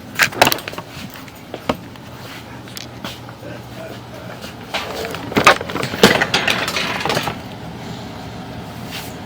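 Duct inspection camera and its push cable rattling and scraping against sheet metal ductwork. There is a burst of knocks near the start and a longer stretch of scraping about five to seven seconds in, over a steady low hum.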